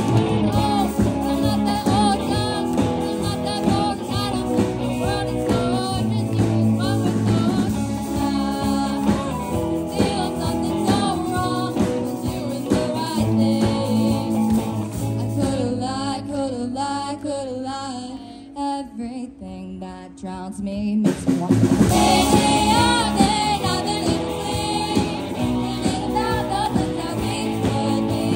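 A live student rock band playing a song with singing: drum kit, guitars, bass and keyboard. About two-thirds of the way through, the drums and most of the band drop out for a quieter sung passage, and the full band crashes back in a few seconds later.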